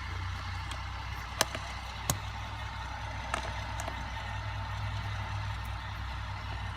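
Hand tools clicking and knocking on the metal seat bolts and bracket: two sharp knocks close together, then a couple of fainter clicks. Under them is a steady low hum.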